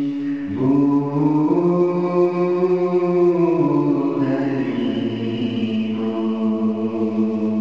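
Devotional chanting: a voice holding long, drawn-out notes, stepping up in pitch about half a second in and again a second later, then sliding down to a lower held note around the middle.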